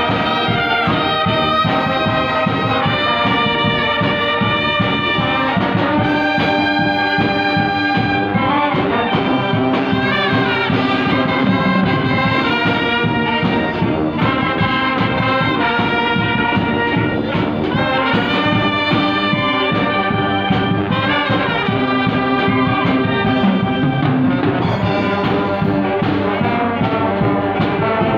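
Banda brass band playing a tune live: trumpets, trombones, saxophones and clarinets carrying the melody over sousaphone bass.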